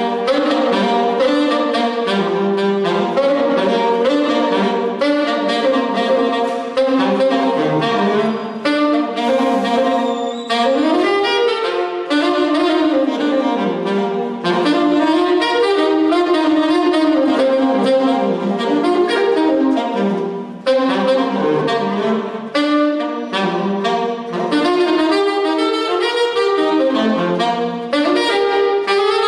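Saxophone playing a fast, jazzy melody of quick runs of notes, with a few bends sliding up in pitch.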